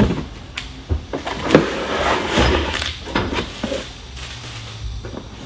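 Packaging being handled: plastic and bubble wrap rustling, with knocks and scrapes against a cardboard box as a wrapped part is lifted out. The rustling and knocks are busiest in the middle and ease off near the end.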